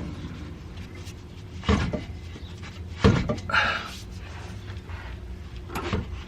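Metal exhaust pipe clunking against the car's underside as it is forced into place during an aftermarket exhaust install: two heavy knocks about a second and a half apart, then a lighter one near the end.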